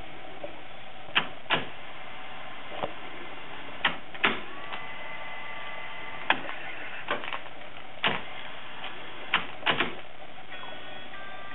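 About a dozen sharp mechanical clicks and clunks at irregular intervals, some in close pairs, over a steady hiss. A faint steady tone sounds for about a second and a half in the middle.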